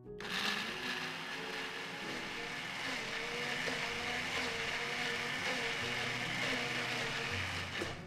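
Countertop blender motor running at high speed, puréeing soaked cashews and coconut cream into a smooth matcha cheesecake filling. It starts abruptly, runs steadily and stops suddenly near the end.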